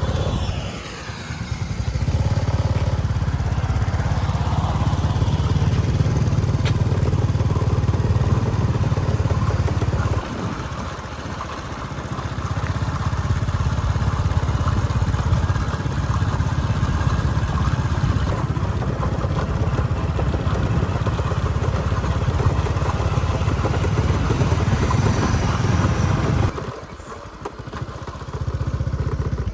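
Motorcycle engine running while ridden, with wind and road noise. The engine note drops back briefly about a second in, again around ten seconds in, and once more near the end, as when the throttle is eased.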